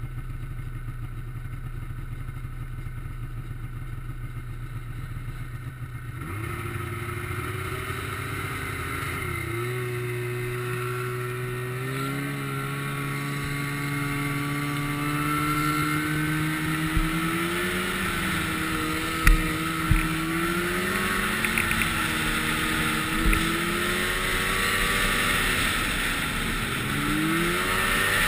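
Snowmobile engine idling steadily, then revving as the sled pulls away about six seconds in and rides along the trail, its pitch climbing and swinging up and down with the throttle. A few sharp knocks come in the second half.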